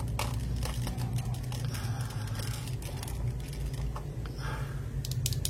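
Mechanical keyboard switches being pressed in quick succession, clacking: a run of key strikes near the start and again near the end, with scattered presses between, over a steady low hum.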